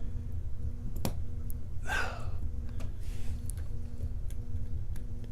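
Small tools working at a lock cylinder: one sharp click about a second in and a few faint ticks, over a steady low rumble with a faint hum. A breathy exhale comes about two seconds in.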